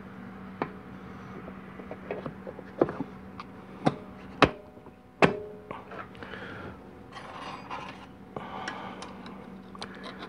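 2-4 band servo assembly being fitted into the bore of a 700R4 transmission's aluminium case: a series of sharp metal clicks and knocks, the loudest two about four and a half and five seconds in, the second ringing briefly. Then a few seconds of rubbing and scraping as the servo cover is pressed home.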